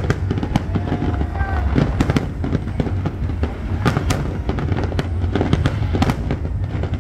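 Aerial fireworks display: a steady low rumble of booms with sharp cracks every second or so.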